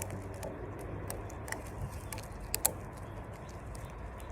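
Rubber band being stretched and worked onto a watermelon, with a few soft clicks, the loudest a pair about two and a half seconds in.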